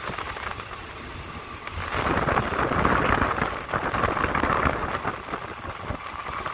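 Passenger train carriage running along the rails: wheels and the wooden coach body rattling and clattering in a steady noisy rush, heard through an open window. It grows louder about two seconds in.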